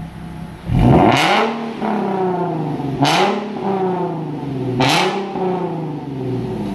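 Nissan 370Z's 3.7-litre V6 (VQ37VHR) blipped from idle three times through a full Armytrix cat-back exhaust. Each rev rises sharply with a loud rasp at the top, then falls back toward idle. The first starts about a second in, the others about two seconds apart.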